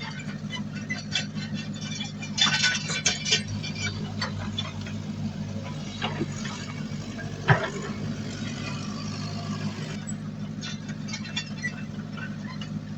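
Heavy earthmoving machinery's diesel engine running steadily, with a burst of metallic clanking about two and a half seconds in and a single sharp knock about halfway through.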